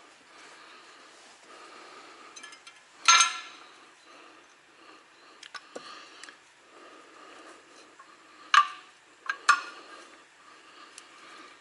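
Metal clanks and clinks of tools and brake parts being handled during a semi truck's front brake job: one loud ringing clank about three seconds in, then three more around the ninth second, with lighter ticks between.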